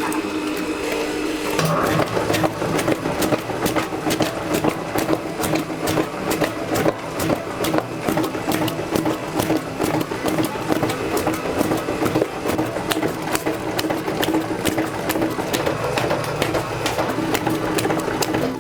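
A motor-driven machine running with a steady hum and rapid, irregular rattling clicks.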